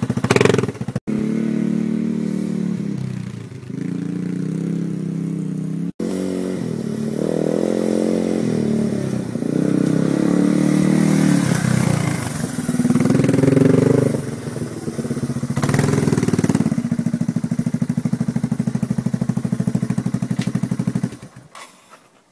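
ATV (quad) engine running as it is ridden, its pitch rising and falling with the throttle through the middle; it cuts off near the end.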